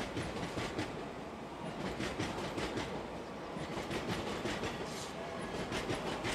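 SBB electric passenger train running past on the station tracks, a steady rumble with irregular wheel clicks over the rails.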